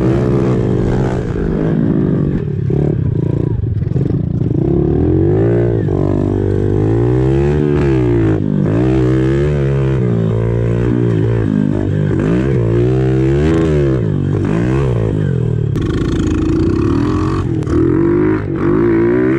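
110cc four-stroke pit bike engine revving hard and backing off again and again, its pitch climbing and falling every second or two, heard close up from on board the bike.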